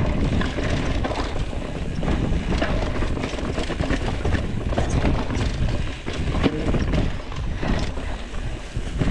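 Mountain bike rolling over rocky, leaf-covered singletrack: tyres on dry leaves and stones, with frequent clicks and rattles from the bike over a steady low rumble.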